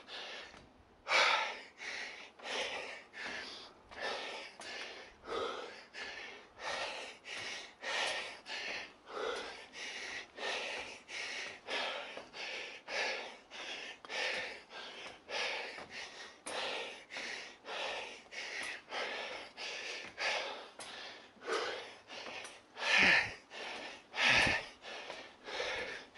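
A person panting hard and steadily, about two breaths a second, out of breath from climbing a long, steep stair; two louder breaths come near the end.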